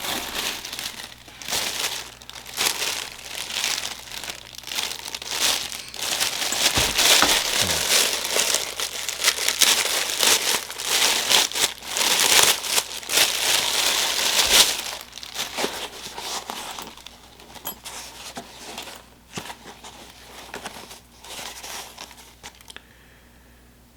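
Packaging being crinkled and crumpled by hand while items are dug out of a mystery box, an irregular rustling that is heaviest in the middle and dies away near the end.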